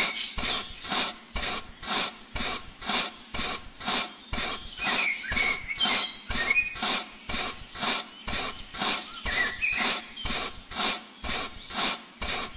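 Rhythmic rasping strokes, about two or three a second, with faint high chirps over them.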